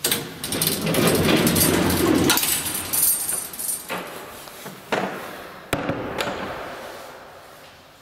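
A lift's wooden car door and manual landing door being pushed open and swung shut: a loud rattling clatter for the first two seconds or so, then a few sharp clicks and knocks of the door and its latch, fading away.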